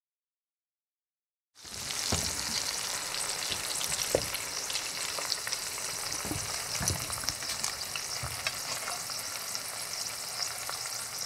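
Shrimp, sliced garlic and dried red chilies frying in oil in a cast-iron skillet: a steady sizzling hiss with scattered crackles and pops, starting after about a second and a half of silence.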